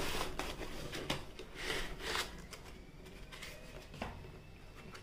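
Cardboard laptop box being opened by hand: flaps and panels rustling and scraping against each other, with several louder scrapes in the first two seconds and quieter handling after.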